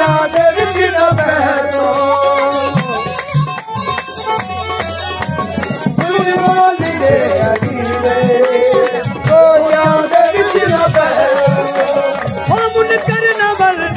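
Men singing a Punjabi devotional folk song (qasida) in full voice, accompanied by a hand drum and shaken ghungroo ankle bells that keep a steady jingling beat.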